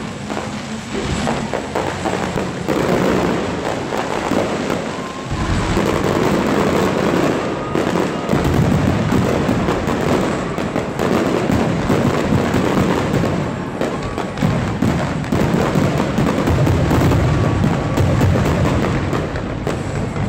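Aerial fireworks display: many shells bursting in rapid succession, a continuous barrage of booms and crackle that grows heavier after about five seconds.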